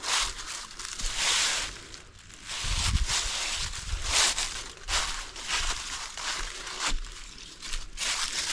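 Footsteps crunching through dry fallen leaves, about one step a second.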